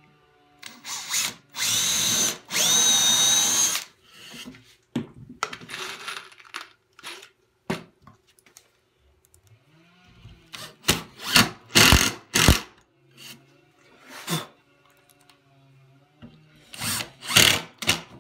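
Cordless drill boring into a pine board: one steady run of about two seconds near the start, then a series of short trigger bursts in the middle and again near the end, the motor whining up at each start.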